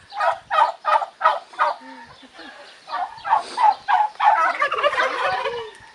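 Domestic turkeys gobbling: first a quick run of short, barking calls, then from about halfway a denser stretch of several birds gobbling over one another.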